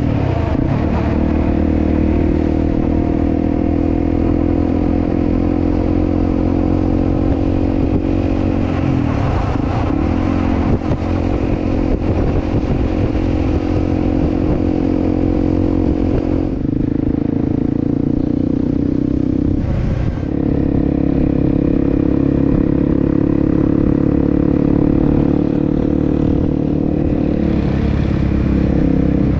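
Motorcycle engine running steadily while riding, a loud, even engine hum under road and wind noise. The engine note dips briefly twice in the second half, as the throttle eases.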